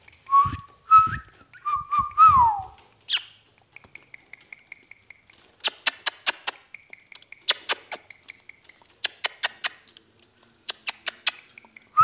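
Indian ringneck parakeet giving soft whistled notes, some held and some sliding down in pitch, in the first few seconds. A long run of sharp, irregular clicks follows, and a short warbling whistle comes at the very end.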